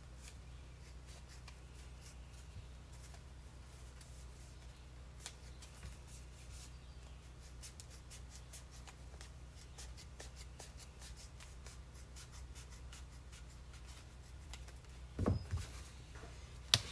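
Scissors cutting through a stack of thin black EVA foam sheets: faint, quick, repeated snipping and scraping, over a low steady hum. A short, louder sound comes near the end.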